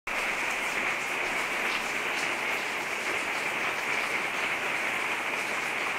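Heavy rain falling steadily on a wooden deck and lawn: a dense, even hiss.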